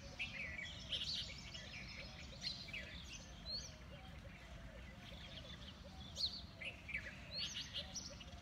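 Several birds chirping and calling in short, quick, overlapping notes, over a low steady background rumble.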